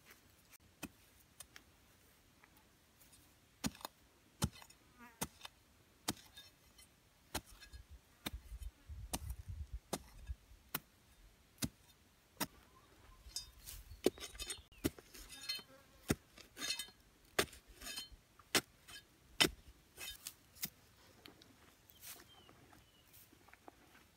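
Machete blade chopping into hard, dry soil to dig a small hole: irregular sharp strikes, roughly one or two a second.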